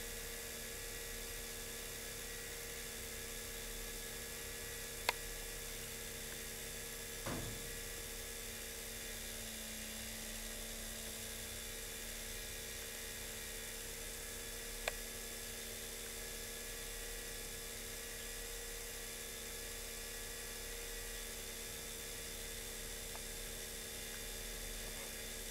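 Steady whirring hum of small electric motors on a model railway layout, holding several fixed tones. Two faint clicks and a short soft thump break it.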